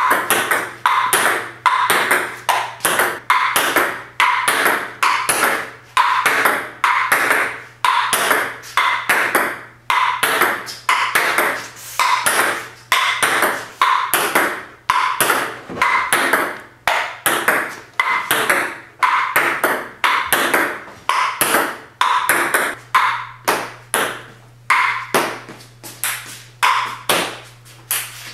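Table-tennis ball being struck back and forth, a sharp tock roughly twice a second at an uneven pace, each with a short ringing decay.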